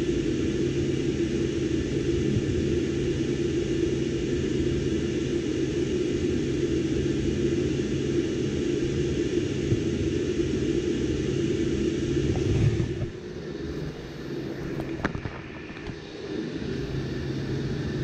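Steady low mechanical hum with constant tones, from the snowmelt system's gas boilers and circulator pumps running while the system is tested. About thirteen seconds in it drops off sharply to a quieter hum, with a faint click a couple of seconds later.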